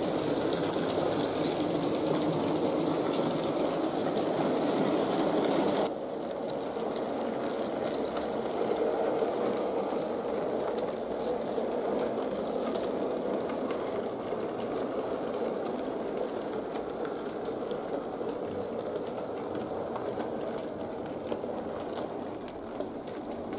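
Fleischmann H0 class 151 model locomotive running with its round motor purring and its wheels rolling on the track, hauling a train of freight wagons. The level drops suddenly about six seconds in.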